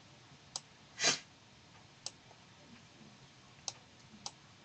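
Computer mouse clicking as a newspaper page is moved on screen: four sharp single clicks a second or more apart, with one louder, slightly longer noise about a second in.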